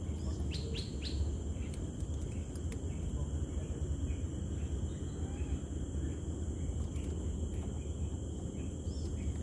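A bird chirps three quick notes about half a second to a second in, over a steady low rumble of outdoor background noise with a few faint clicks.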